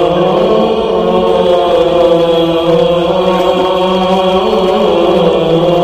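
Chanting in long, held notes, with the pitch shifting slowly from one note to the next.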